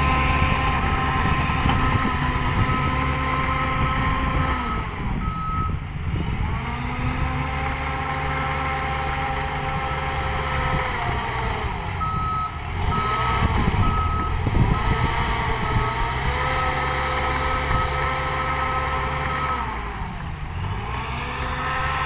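Shantui DH08 crawler bulldozer's diesel engine running under load, its engine speed sagging twice and recovering, with the reversing alarm beeping in two runs while the machine backs up.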